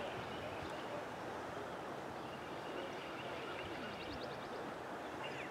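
Quiet outdoor ambience: a steady, even hiss with a few faint, short high chirps in the second half.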